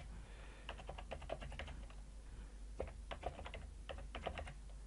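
Quiet typing on a computer keyboard: keystrokes come in short quick runs with brief pauses between them.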